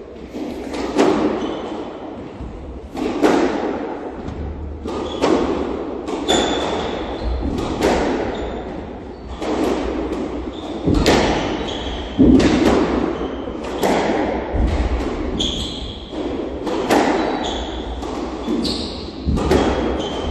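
Squash rally: the ball knocked by racquets and hitting the court walls, a sharp echoing strike every second or so, with short high squeaks of shoes on the wooden floor.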